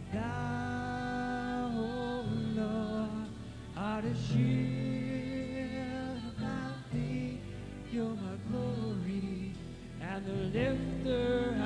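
Worship music: long, wavering sung notes that glide between pitches, over a steady instrumental accompaniment.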